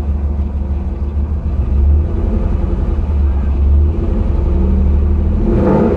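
1999 Chevrolet Camaro's LS1 5.7-litre V8 idling with a deep, steady rumble, swelling briefly about two seconds in and again near four seconds.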